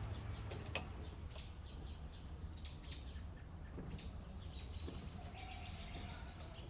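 Small songbirds chirping in short high calls over a low outdoor rumble, with one sharp click just under a second in.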